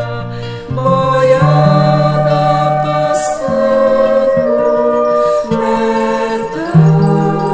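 A song: a voice singing long held notes over acoustic guitar accompaniment.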